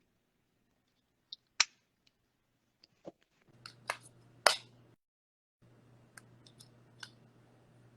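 A few scattered sharp clicks and taps, about six over several seconds, the loudest a little past the midpoint, over a faint low hum that drops out briefly and returns.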